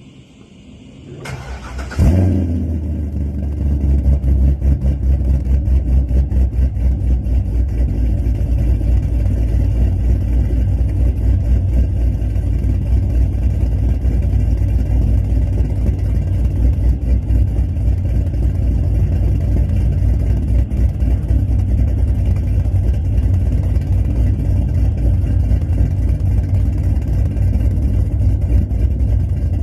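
Chevrolet C6 Corvette V8 cranked over and catching about two seconds in, then idling loud and steady with a rapid, uneven, choppy pulse: the grunting idle its owner likens to pig noises.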